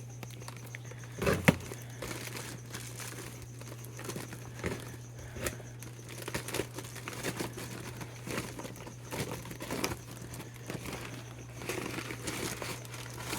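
Shipping packaging crinkling and rustling in irregular bursts as the last bag of a live-animal shipment is opened, with one sharp knock about a second and a half in. A steady low hum runs underneath.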